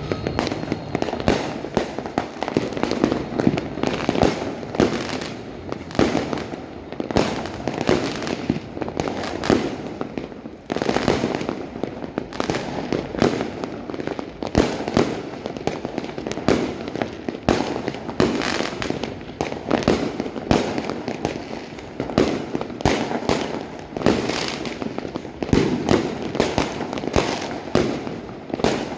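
Many fireworks and firecrackers going off at once: an unbroken run of sharp bangs and pops, several a second, over constant crackling.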